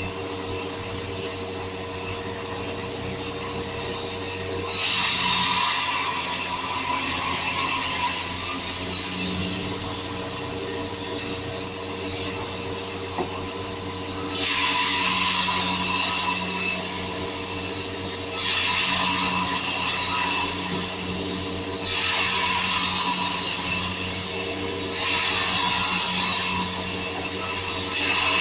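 Sawmill power saw running steadily, with about five louder passes as the blade cuts through wood, each lasting a few seconds.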